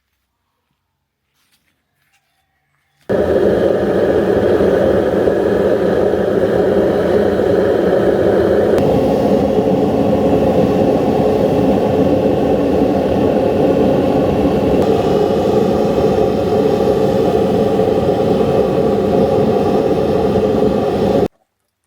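A loud, steady machine noise, such as a workshop power tool or forge equipment, that starts abruptly about three seconds in and cuts off shortly before the end. Its tone shifts twice along the way.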